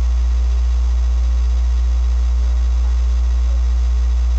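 Loud, steady low electrical hum on the recording with a faint hiss above it, unchanging throughout: mains hum that is the cause of the bad sound quality.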